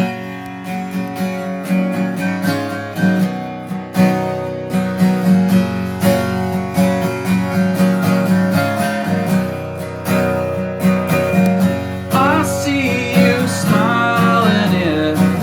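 Acoustic guitar strumming a steady chord pattern as a song's introduction; a singing voice comes in about three seconds before the end.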